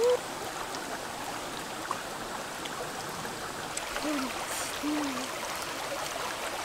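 Shallow stream running over rocks: a steady rushing of water, with a few short voice sounds, at the very start and again about four and five seconds in.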